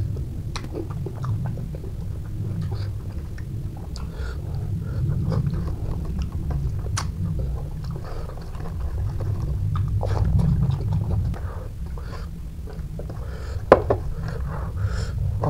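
Close-miked chewing with many small wet mouth clicks as boiled rohu fish and rice are eaten by hand. A sharper click comes about two seconds before the end.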